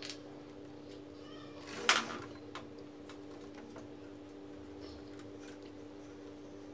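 Small clicks and rustles of plastic parts and wiring being handled inside a laser printer's frame, over a steady low hum. About two seconds in comes one loud, short squeal.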